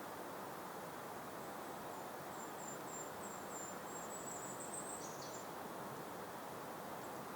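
Steady, soft breeze hiss in an open meadow, with a small bird singing a thin, very high run of short notes from about a second and a half in until about five seconds in.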